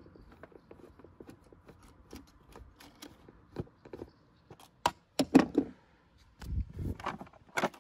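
Faint ticking as a screw on a Škoda Fabia's plastic air filter housing is worked loose, then several sharp plastic clicks and knocks and a dull thump as the housing lid is freed and lifted.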